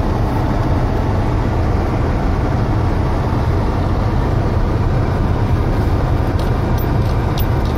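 Car driving slowly over a snow-covered road, heard from inside the cabin: a steady low rumble of engine and tyres, with a few faint ticks near the end.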